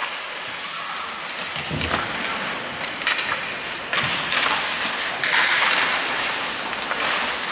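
Ice hockey rink sounds: a steady hiss of skate blades scraping and carving the ice, broken by a few sharp clacks and knocks of sticks and puck, two of them with a dull thud about two and four seconds in.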